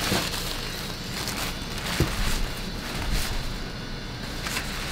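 Packing paper rustling and crinkling as it is pulled off a new chrome mini-bike exhaust pipe, with a light knock about two seconds in.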